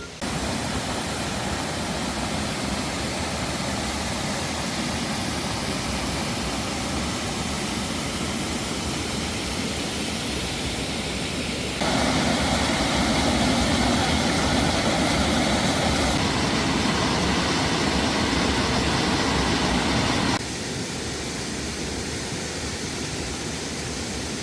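Mountain stream rushing over rocks, a steady rush of water that jumps louder about halfway through and drops back a few seconds before the end, as the recording cuts between spots along the stream.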